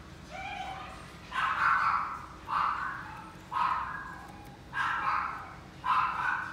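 Dog barking: five sharp barks about a second apart, after a fainter sound in the first second.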